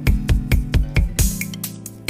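Background music with a steady beat of low drum thumps, about four a second, over held bass notes and high cymbal hits.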